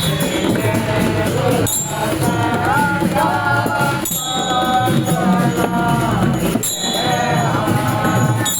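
Music with a singing voice carrying a gliding melody.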